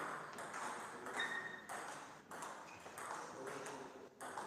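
Table tennis ball being hit back and forth in a rally: sharp clicks of the ball off the rackets and table, about every half second.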